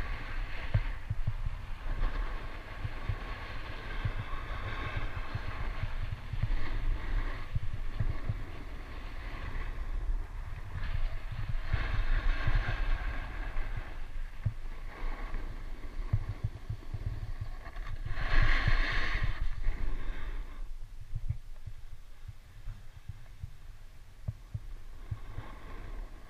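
Skis sliding and scraping over packed snow during a downhill ski run, under a steady low rumble of wind buffeting the camera's microphone. The scraping swells several times with the turns, loudest about 18 seconds in, and is quieter near the end.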